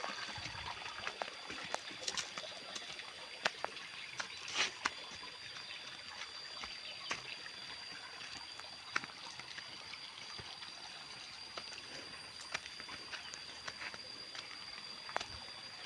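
Water trickling steadily, with a thin steady high tone and scattered sharp clicks over it.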